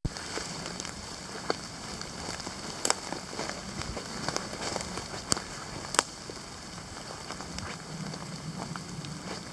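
Footsteps crunching through dry fallen leaves on a forest floor, with a few sharper cracks of twigs underfoot.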